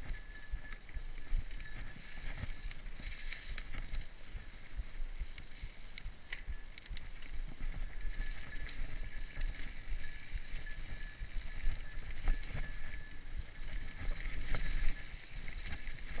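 Mountain bike rolling over a leaf-covered dirt trail: tyres crunching over dry leaves, with many clicks and rattles as it goes over bumps and a steady low rumble on the microphone.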